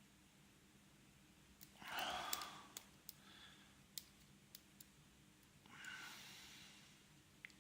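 Faint scattered clicks of a hook pick and tension wrench working the spool pins of a six-pin padlock. Two breathy exhalations near the microphone, about two seconds in and again about six seconds in, are the loudest sounds.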